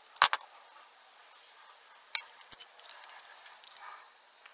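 Clicks and clinks of PVC pipe fittings, a brass coupling and a wrench being handled and fitted together. One sharp knock comes just after the start, then a quick run of small clicks about two to four seconds in.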